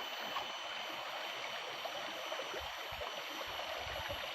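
Steady rushing of running water, with a faint thin high tone held throughout.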